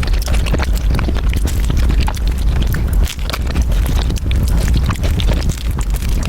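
Close-miked eating: loud chewing and crunching, a fast irregular run of crackles and clicks over a heavy low rumble.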